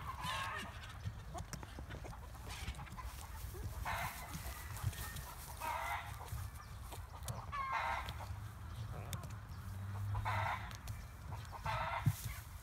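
Chickens clucking: about six short calls at uneven gaps of roughly two seconds, over a steady low rumble.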